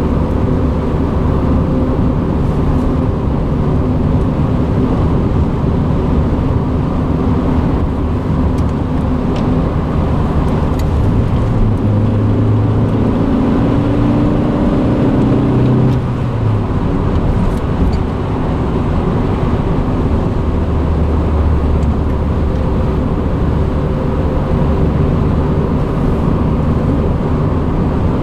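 1989 Honda Accord LXi's four-cylinder engine running on the move, heard from inside the car over loud road and tyre noise, with a stronger engine note for a few seconds around the middle that cuts off abruptly. The car has a deep knocking from a failing water pump pulley and a worn wheel bearing, but the knock is hard to pick out over the road noise.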